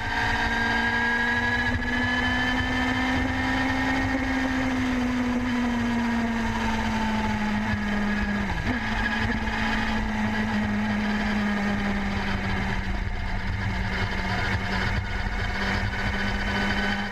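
BMW S 1000 R motorcycle's inline-four engine running at a fairly constant speed under a low rumble. Its pitch eases down slightly over the first several seconds, then holds steady, with a brief blip about halfway through.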